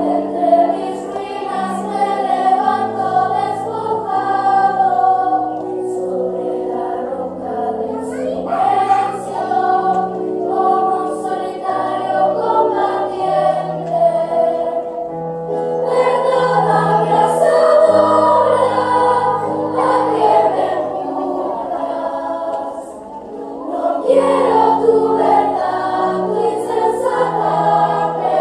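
Children's choir of girls and boys singing a song. It drops quieter briefly about three quarters of the way through, then swells again.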